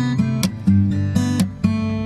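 Background music: strummed acoustic guitar chords, a new strum about every half second.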